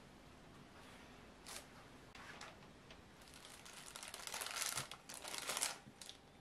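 Baking paper rustling as cubes of butter are slid off a sheet into a glass bowl: two short rustles first, then a longer spell of rustling from about three seconds in, loudest near the end.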